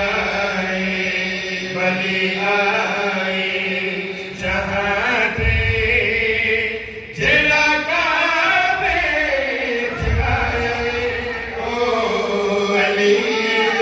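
A man chanting a devotional qasida in long, gliding sung phrases over a steady held tone underneath. There is a short break about seven seconds in.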